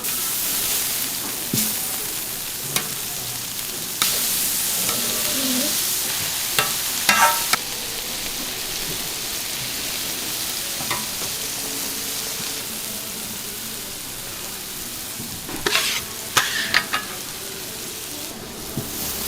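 Korean street toast frying on a hot griddle, sizzling with a steady hiss. Short sharp clinks come a few times, in a cluster about seven seconds in and again near the end.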